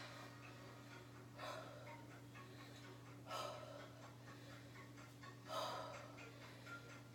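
A woman breathing hard from exertion while lifting dumbbells: three short, sharp breaths about two seconds apart, over a steady low hum.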